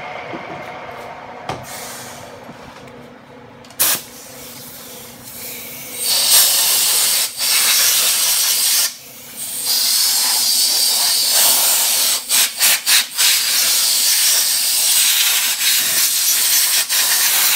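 Compressed-air blow gun blowing chips off a freshly milled part: long hissing blasts start about six seconds in, with a short break and then a quick run of short puffs before a final long blast. Before the air starts there is only a faint steady hum.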